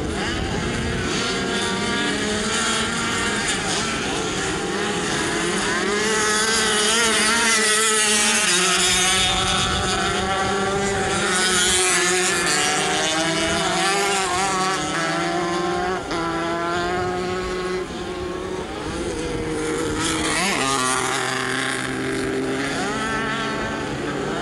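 Several dirt-track racing motorcycle engines running hard together, their pitch rising and falling as the bikes accelerate and back off through the turns.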